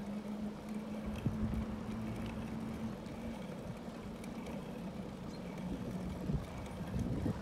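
Bicycle riding on smooth asphalt: steady tyre rolling noise and wind on the microphone, with a faint steady low hum through most of the ride.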